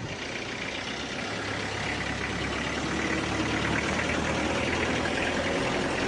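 Engine running with a steady hum that slowly grows louder.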